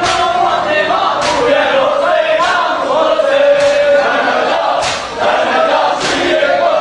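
A group of men chanting a mourning lament (nauha) in unison, kept in time by a sharp beat about every 1.2 seconds.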